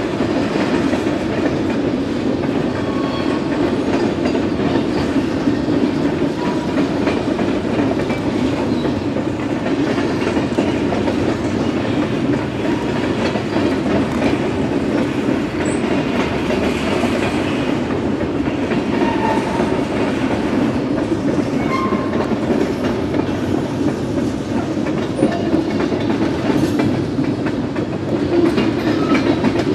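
Freight train's covered grain hoppers and tank cars rolling past: a steady rumble of steel wheels on rail, with clacking as the wheels cross the rail joints.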